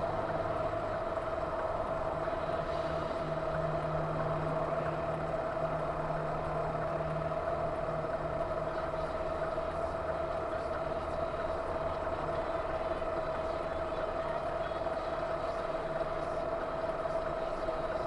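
Steady car engine and road noise with a constant high tone running through it, the low drone swelling for a few seconds and then settling; no crash or impact is heard.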